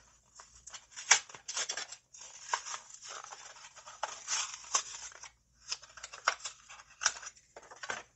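A toy car's blister pack being torn open by hand: the cardboard backing ripping and the plastic blister crackling. It comes as a run of sharp snaps and rustles, with a longer stretch of tearing in the middle.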